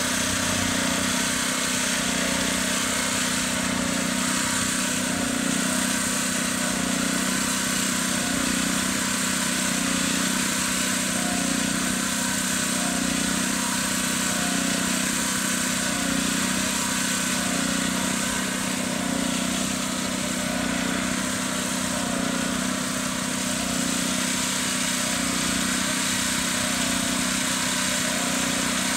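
Small gasoline engine on a wheeled job-site machine running steadily at a constant speed, an even drone that does not change.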